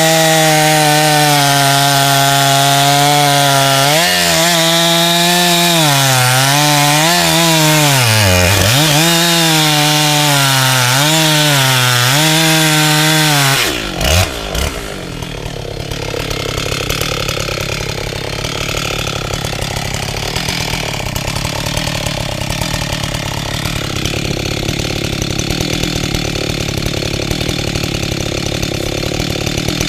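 Husqvarna 385XP two-stroke chainsaw at full throttle cutting silver maple, its revs dipping again and again as the chain loads up in the cut. About 14 seconds in the throttle is released and the saw drops to a rough idle.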